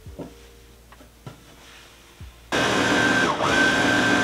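Juki MO-2500 overlocker (serger) stitching patchwork pieces together, starting about two and a half seconds in with a steady motor noise and a high whine that dips briefly midway. Before it, light rustling and tapping of fabric being handled.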